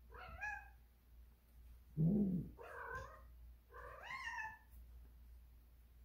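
Domestic cat calling in four drawn-out meows and yowls, one low call about two seconds in being the loudest. These are typical heat calls from a cat in season.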